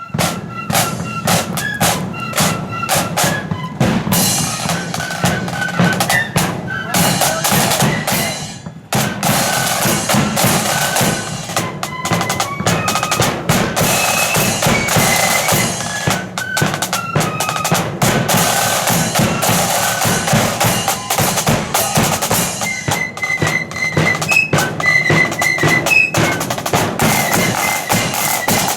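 Marching flute band playing: high flute melody over rattling snare drums and a bass drum, with a short break about eight seconds in before the tune resumes.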